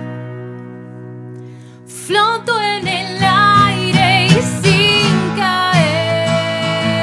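Live acoustic pop-rock: an acoustic guitar chord rings and fades, then about two seconds in a woman's voice comes in singing with vibrato over strummed acoustic guitar. She holds one long note near the end.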